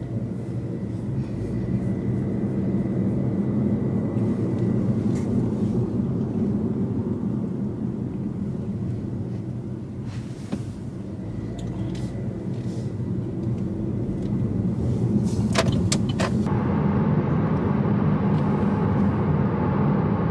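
Car cabin noise while driving: a steady low rumble of engine and road, with a few sharp clicks about three-quarters of the way through.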